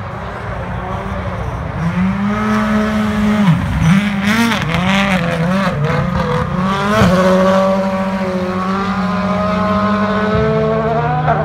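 Rally car engine running hard on a snowy stage. The revs swing up and down, then hold high, with a few sudden drops in pitch.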